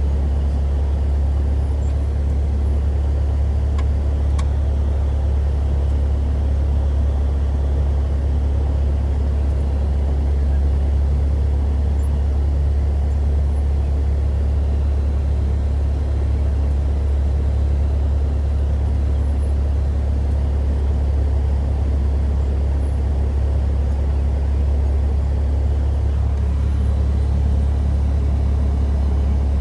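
Cessna 172 Skyhawk's piston engine and propeller running at low taxi power, heard from inside the cabin as a steady low drone.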